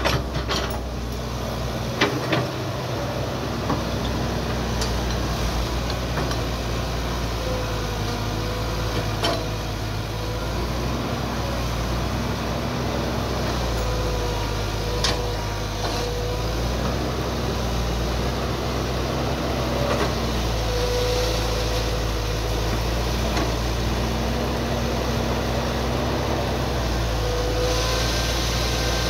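Hitachi hydraulic excavator's diesel engine running steadily while it digs and swings, with a hydraulic whine that rises and drops away again every few seconds as the boom and bucket work. A few sharp knocks are heard along the way.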